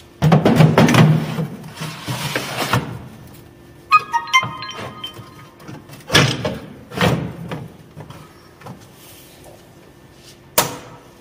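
Large plastic reagent bottles scraping and knocking as they are slid onto the metal shelves of a cabinet, with a few short ringing clinks midway. Near the end, one sharp knock as the clear cabinet door is shut.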